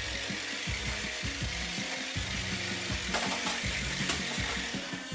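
Toy minigun firing: a fast, continuous mechanical rattle.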